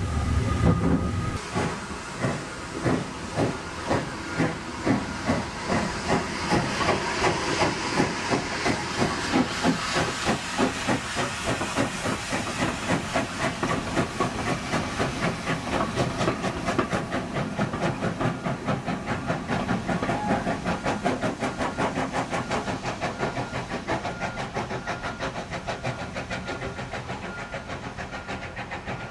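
GWR tank steam locomotive pulling away, its exhaust beats starting at about two a second and quickening as it gathers speed, with steam hiss, fading as the train draws off.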